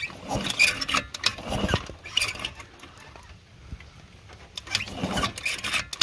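Eton DXL 90's 90cc two-stroke engine being cranked over in a few short bursts with pauses between, during a spark test. It does not fire because there is no spark.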